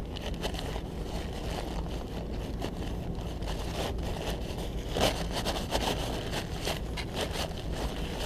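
Paper towel rubbing and crinkling over a printed circuit board as wet solder mask paint is wiped off, in irregular scrapes with a louder scuff about five seconds in, over a steady low hum.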